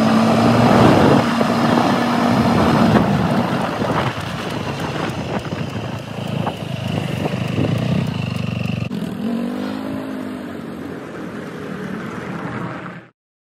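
Kymco MXU 300 quad's engine running as it is ridden, with a steady tone at first and a shifting pitch about ten seconds in. The sound cuts off suddenly just before the end.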